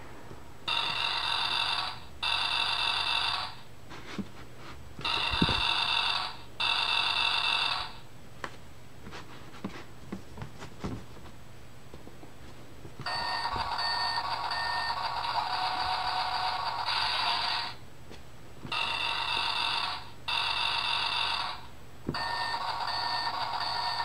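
Electronic sound effects from a children's sound book's button panel speaker: steady, ringing buzzy tones in bursts about a second long, the first ones in pairs. Between about 8 and 13 seconds in come soft scrapes and clicks as the board-book page is turned, then longer bursts of the same kind.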